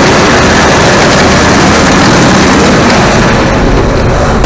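Combine harvester running loud and steady while picking soybeans: a low engine drone under a dense, even rush of noise.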